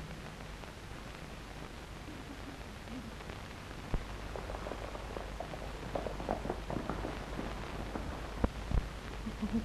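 Steady hiss of an old film soundtrack. From about four seconds in come irregular clopping knocks of horses' hooves on a dirt yard as riders come up on horseback.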